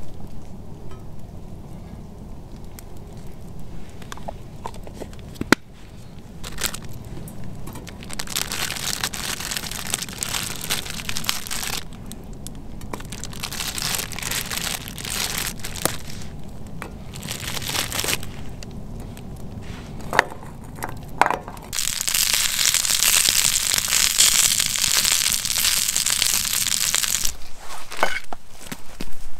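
Campfire cooking: the fire crackles and hisses under a pan, with a few sharp clicks and knocks of cooking gear. The hiss comes in stretches and is loudest for several seconds near the end, over a steady low rumble.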